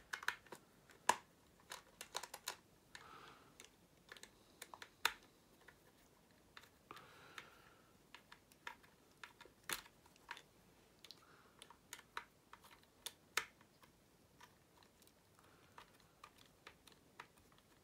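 Small screwdriver working the tiny screws under the bogie of a Hornby Class 56 model locomotive: scattered faint clicks and a few brief scrapes at irregular intervals, with the plastic model being handled.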